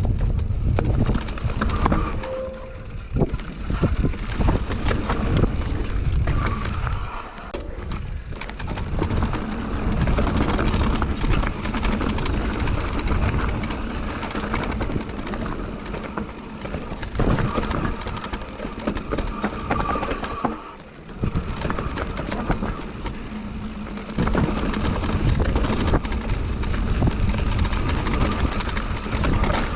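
Mountain bike riding down a dirt trail: tyres rolling over the ground, with the chain and frame rattling over bumps and wind buffeting the microphone.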